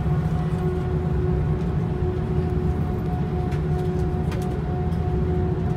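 Jet airliner cabin noise: a steady deep rumble from the engines and air systems, with a faint steady hum above it.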